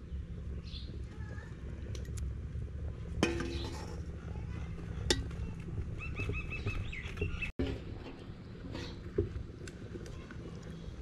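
Metal spatula clinking against a metal cooking pot a few times while stirring fish curry, the loudest clink about three seconds in. A bird calls a short run of repeated notes just past the middle, over a steady low background rumble.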